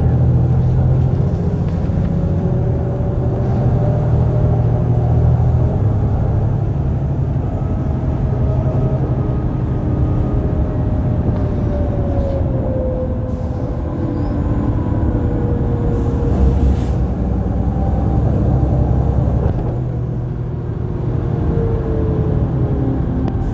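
A NefAZ 5299 city bus running as it drives along, heard from inside: a steady low engine hum with a faint whine that slowly falls in pitch midway and rises again near the end.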